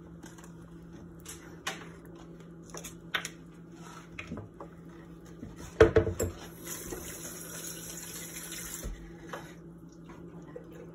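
Wooden spoon stirring a thin butter-and-garlic sauce in a stainless steel saucepan, with light taps of the spoon against the pot and one loud knock just before the middle. Right after the knock, a high hiss runs for about two and a half seconds, over a low steady hum.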